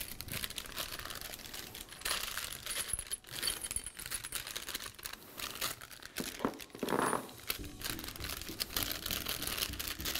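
A small bag of assembly screws being handled and opened, crinkling and rustling irregularly, with light clinks as the metal screws are tipped out onto a cardboard box.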